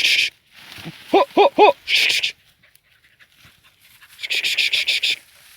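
Hunting dog giving three quick, short yelping barks about a second in, among bursts of a rapid raspy pulsing sound.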